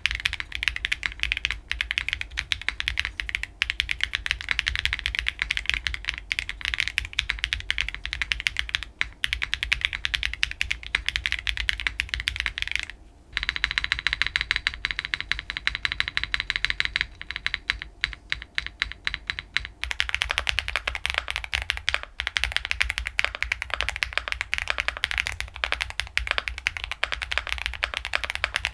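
Continuous fast typing on mechanical keyboards fitted with Clackbits full-POM linear switches, a dense run of key clacks. After a brief pause about 13 s in, the keystrokes take on a different sound, and they change again about 20 s in, as the switches are heard in a different keyboard build.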